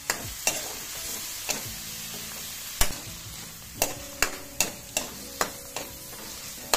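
Sliced mushrooms sizzling steadily in a metal wok while a metal spatula stirs them, scraping and clinking against the pan about a dozen times, more often in the second half.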